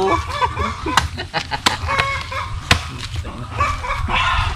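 Machete chopping green coconuts: three sharp chops within the first three seconds. Poultry clucking and calling in the background.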